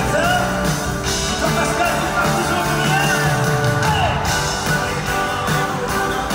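Live pop-rock concert: a man singing over acoustic guitar, drums and a full band, heard from the audience in an arena.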